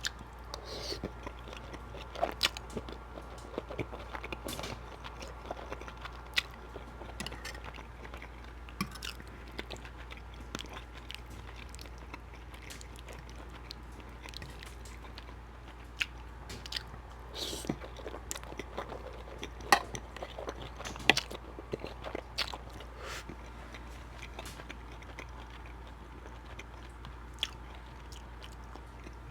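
Close-miked chewing and biting of creamy shrimp Alfredo pasta: wet mouth clicks and smacks that come in clusters, with quieter pauses between mouthfuls.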